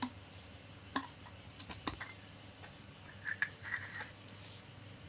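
Small parts and tools being handled: a few sharp clicks and taps, then a cluster of short squeaky scrapes about three to four seconds in.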